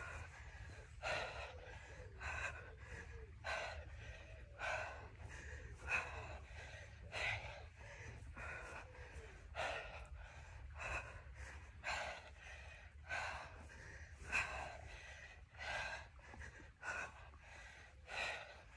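A woman's hard breathing during sit-ups: a short, forceful exhale about every second and a quarter, one with each repetition, from an exerciser near exhaustion.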